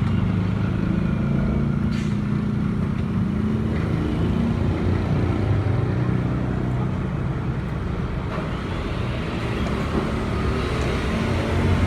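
A motor vehicle engine running steadily close by, with road traffic noise. There is a short click about two seconds in.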